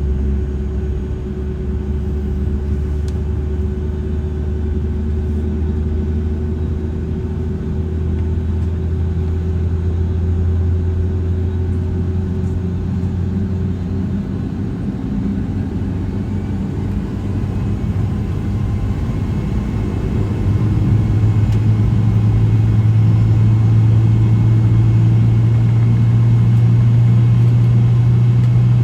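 Boeing 757-200 airliner cabin during taxi: a steady low engine drone and rumble. About twenty seconds in, the drone's pitch steps up and it gets slightly louder.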